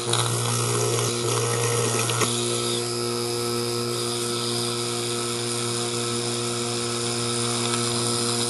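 Opened Whirlpool rotary vane refrigerator compressor running steadily with a strong electric motor hum and a rushing mechanical noise; its motor bearing is worn out.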